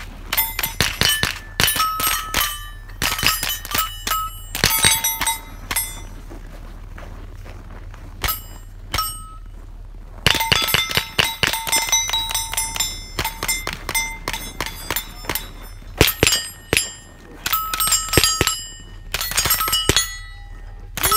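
Rifle shots fired in quick strings, with steel plate targets ringing in short bell-like tones as they are hit. Brief pauses come about six and nine seconds in.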